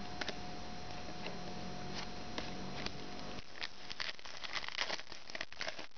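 Basketball trading cards being slid and flicked off a stack in the hands, one after another. A few light ticks at first, thickening into quick clicks and rustling in the second half, over a faint steady hum.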